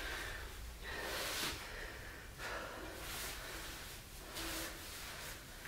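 A man breathing hard through his nose and mouth while exercising: a series of short, hissy breaths, one every second or two.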